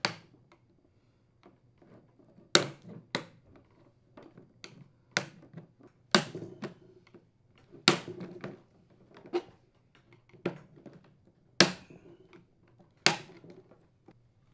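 Plastic latch tabs on a Samsung refrigerator's dispenser flapper clicking and snapping as a small flathead screwdriver pries the inner flapper panel off the outer panel. About a dozen short, sharp clicks come at irregular intervals, roughly one every second.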